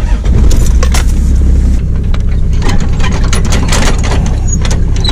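Toyota vehicle running, a steady low rumble with scattered rattles and clicks.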